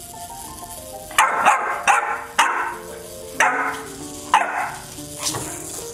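English bulldog puppy barking, a run of about seven short barks starting about a second in, over light background music.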